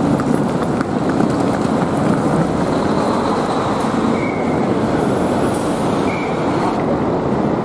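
Steady city background noise outside a large railway station: a dense, even rumble with no separate events standing out.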